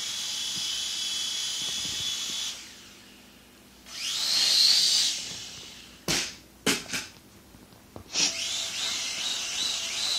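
Syma X1 toy quadcopter's motors and propellers whining at a high pitch in three spells: first steady, then swelling up and falling away as the throttle is pushed and released, then wavering. In the lull between, a few sharp knocks, the loudest about two-thirds of the way through.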